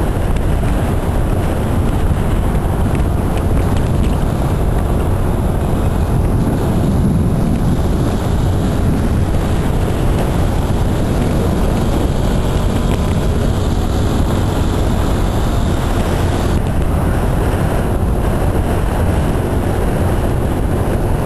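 Steady wind buffeting on the microphone mixed with motorcycle engine and road noise while riding at speed.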